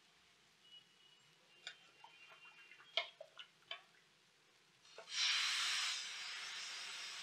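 Thin rice-flour neer dosa batter splashed from a ladle onto a hot tava, sizzling loudly as it hits and then settling to a steady hiss as it cooks. A few light clinks come before it.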